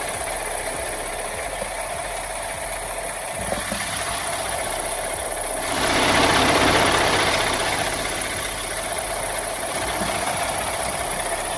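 Semi truck's diesel engine idling steadily. About six seconds in, a loud hiss of escaping gas swells and fades over about two seconds.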